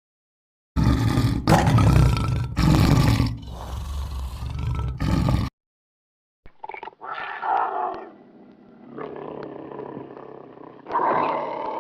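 Animal roaring: a loud, deep roar for about five seconds, then, after a short gap, a quieter, higher-pitched call that swells again near the end.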